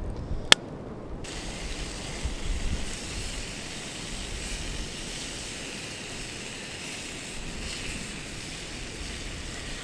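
A sharp click about half a second in. From about a second in, a steady hiss of wind and sea surf.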